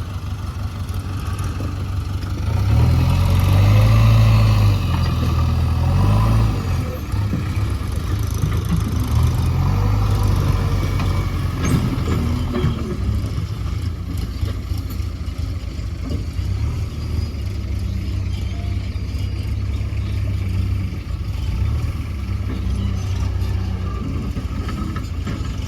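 JCB 3DX backhoe loader's diesel engine running steadily, revving up under load about three seconds in and easing back after about six seconds as it works.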